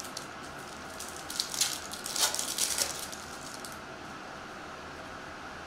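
Baseball cards and foil card-pack wrappers being handled, a burst of crinkling and rustling about a second in that lasts around two seconds, over a faint steady room hum.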